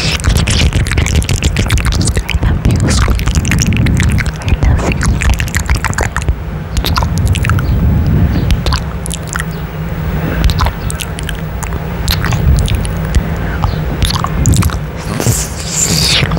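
Close-miked kisses and lip smacks right against a microphone's mesh grille: many quick clicks and pops over a low rumble from breath and lips on the mic.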